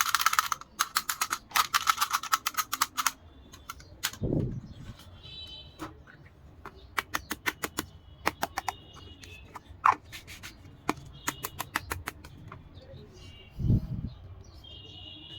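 Small plastic dollhouse pieces and packaging being handled: a quick run of dense clicks and crackles in the first few seconds, then scattered light clicks and taps. Two dull thumps, about four seconds in and near the end.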